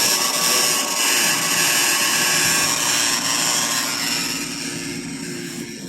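1963 Ford Thunderbird's 390 FE V8 idling, with a steady high whine and hiss from its noisy power steering pump. The sound fades over the last couple of seconds.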